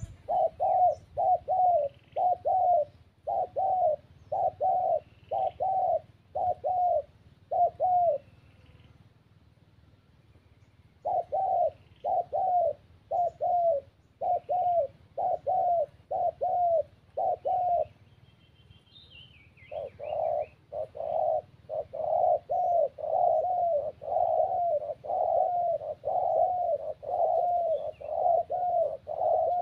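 Spotted dove cooing: runs of short, falling coos at about two a second, breaking off twice for a few seconds. Faint chirps of small birds are heard behind it.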